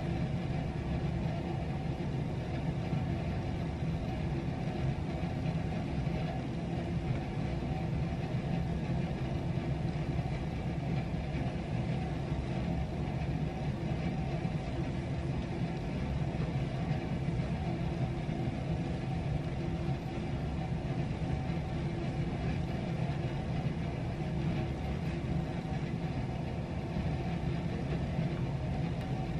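A steady, unchanging low mechanical hum with a few faint held tones above it.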